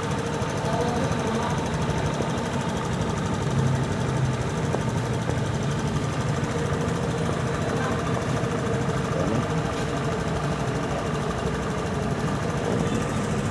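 Honda Click 150i scooter's single-cylinder engine idling steadily.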